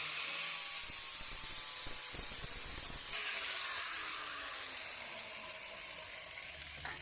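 Electric arc welder laying a weld bead on scrap steel: a steady crackling hiss that eases off slightly toward the end.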